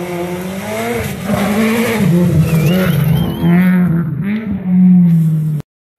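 Rally car's engine revving hard, its pitch rising and falling repeatedly through gear changes as it comes through the corner. A brief high warbling tone sounds about midway, and the sound cuts off abruptly near the end.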